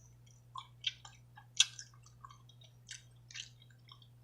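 Close-miked chewing of seafood: scattered wet mouth clicks and squishes, the sharpest about a second and a half in.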